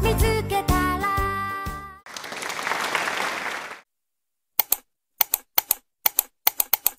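Cheerful background music that stops about two seconds in, followed by a short burst of applause-like noise, then a string of sharp mouse-click sound effects in quick clusters as an animated subscribe button is pressed.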